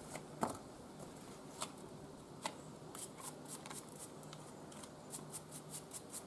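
Quick scraping strokes of a hand tool cleaning a horse's held-up front hoof. A few single scrapes come first, then fast runs of about five strokes a second, the longest near the end.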